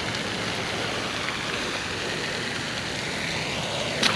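A steady hiss of outdoor noise, then right at the end a sudden loud splash as a released bass hits the water.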